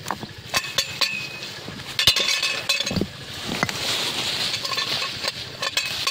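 A metal pipe clinking and knocking against loose stones as they are levered and turned over, with rocks clattering against each other. There is a series of sharp knocks, the loudest about two seconds in.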